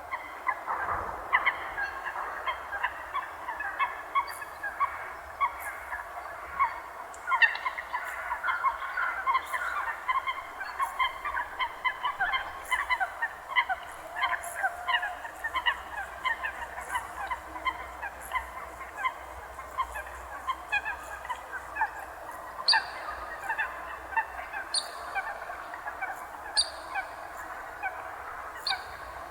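A flock of waterbirds calling continuously, many short calls overlapping in a dense chorus, with sharper, higher calls standing out now and then.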